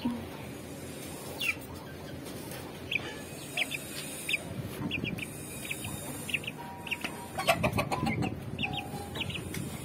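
Chicks peeping in short, high, repeated chirps over rustling from birds being handled. A brief burst of clatter and knocks comes about seven and a half seconds in.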